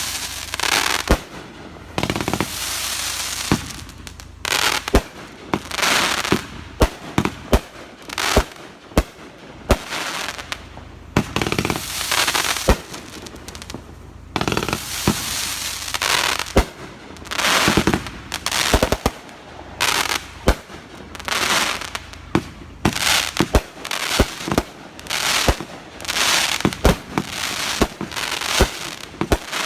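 Consumer fireworks going off in quick succession: a string of sharp bangs, with hissing and crackling between the reports.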